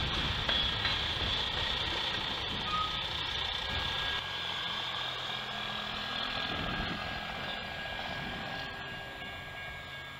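Railroad grade crossing warning bell ringing steadily as the crossing gates start to come down, the sign that a train is approaching. Road traffic passes in the first half.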